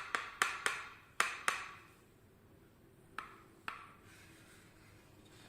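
Wooden puzzle box panels clacking as they are slid and knocked into place: five sharp clacks in quick succession, then two fainter ones a couple of seconds later.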